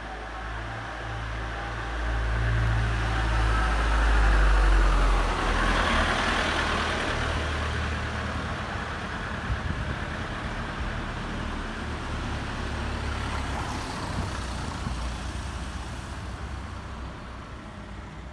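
A motor vehicle passing in the street: low engine rumble and tyre noise build to a peak about five seconds in, then fade slowly.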